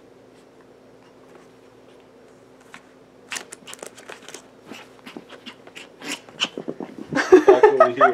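Maltese puppy pawing and scratching at a piece of card on carpet: a run of light, quick scratches and taps from about three seconds in. Near the end the puppy gives a brief, loud, high-pitched cry.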